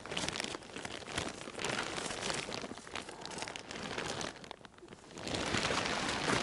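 Close crinkling rustle of a stiff plastic rain cape, with snow crunching under the hands, as a caught bream is unhooked and lifted. It goes briefly quieter about four and a half seconds in.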